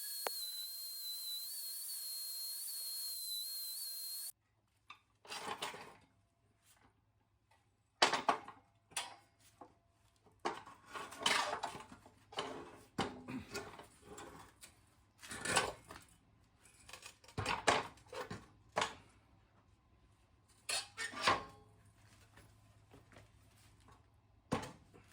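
A small power tool whines steadily at a high pitch for about four seconds and then cuts off abruptly. It is followed by a long run of clinks and clatters of metal parts and hand tools being handled and set down.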